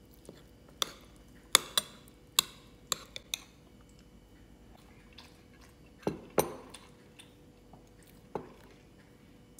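Metal spoon clinking and scraping against a ceramic bowl as rice and grilled eggplant are scooped: a quick run of sharp clinks in the first few seconds, two more about six seconds in and one near the end.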